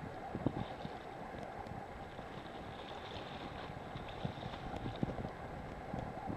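Wind buffeting the camera microphone, a steady low rumble with a few soft thumps.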